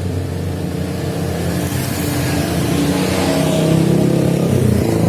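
Yamaha RX King's two-stroke single-cylinder engine running, its revs and loudness climbing gradually over the last few seconds.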